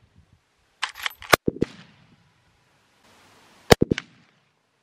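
Gunshots in quick bursts: a rapid cluster of several cracks about a second in, then another quick group of three or four near the end.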